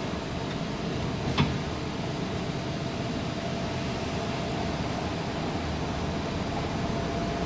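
A UTDC CLRV streetcar running along the track, heard from inside the cabin: a steady low rumble with a faint constant tone over it. A single sharp click comes about a second and a half in.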